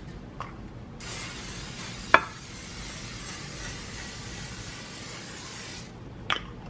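Aerosol cooking spray hissing for about five seconds as it coats a baking dish, with one sharp click about two seconds in.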